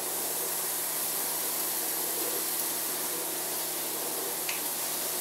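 Beef hamburger patties sizzling steadily in a hot cast iron pan.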